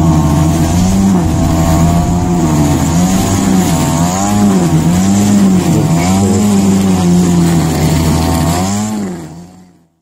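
Petrol lawn mower engine running continuously, its pitch wavering up and down about once a second. The sound fades out near the end.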